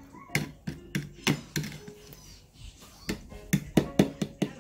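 Raw eggs being whisked in a plastic bowl, the utensil clicking and tapping against the sides several times a second in an uneven rhythm.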